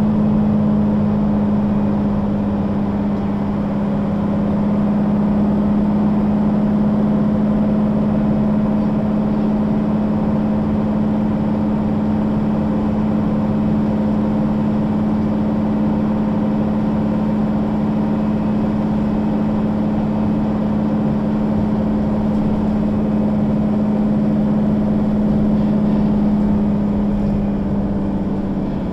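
Mercedes-Benz O 530 G Citaro articulated bus under way at a steady speed, its diesel engine running with an even, unchanging drone. Near the end the drone drops slightly in pitch and level as the bus eases off.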